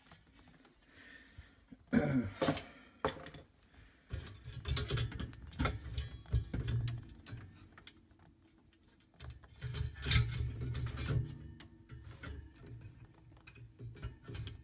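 Handling noise from work on refrigerator parts: scattered light metallic clicks and clinks, with two stretches of low rubbing and bumping, about four and nine seconds in.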